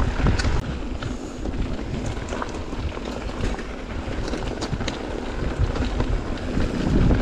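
Mountain bike rolling fast down a trail, with wind rushing over the microphone, tyre noise and scattered clicks and rattles from the bike.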